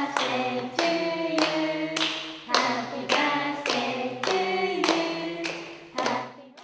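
A recorded party song played back through the candle recorder's speaker: voices singing a tune with hand claps keeping time, about three claps every two seconds. The playback cuts off suddenly near the end.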